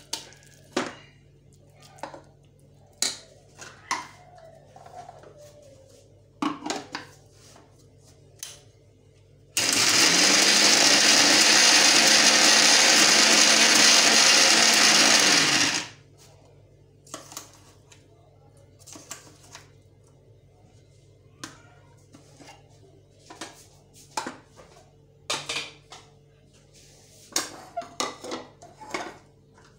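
Orange-brand mixer grinder running once for about six seconds, starting roughly ten seconds in, grinding boiled chana dal and red meat to a paste. The motor pitch rises as it spins up and falls away as it cuts off. Before and after it, a steel spoon clinks and scrapes against steel pots and the grinder jar.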